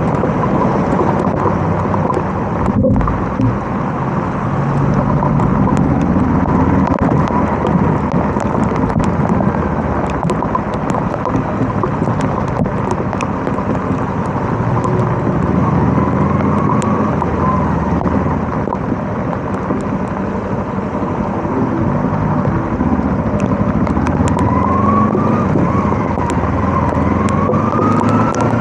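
Kawasaki KLE 250 motorcycle riding in heavy rain: the engine runs under a steady wash of rain and road noise, with scattered sharp clicks, and its pitch rises and falls a few times near the end.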